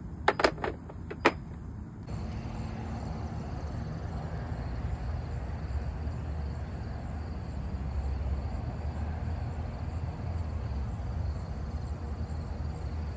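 Four or five sharp metallic clinks of a socket wrench and sockets being handled in the first second and a half, then a steady low background rumble.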